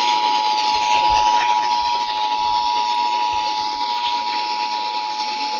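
Emergency Alert System two-tone attention signal, two steady tones sounding together, heard through a radio over heavy static hiss.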